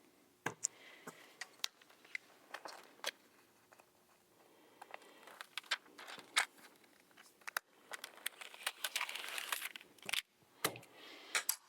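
Plastic window film and its release liner crinkling and crackling as they are handled and peeled apart: scattered small clicks, with a longer stretch of rustling late on.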